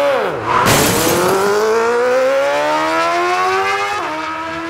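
Motorcycle engine accelerating hard. Its pitch climbs steadily for about three seconds, then drops suddenly at a gear change about four seconds in and holds lower.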